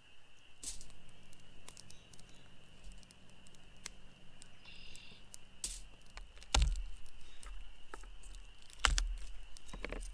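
Cooking prep by hand: a knife working butter on a plastic cutting board and butter being laid on salmon on aluminium foil, heard as scattered clicks and taps with two louder knocks, a little after halfway and near the end. A steady thin high tone runs underneath.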